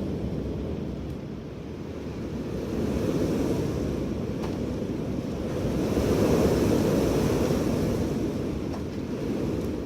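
Strong wind blowing in gusts, a steady rushing that swells twice, about three seconds in and again more loudly around six to seven seconds, then eases.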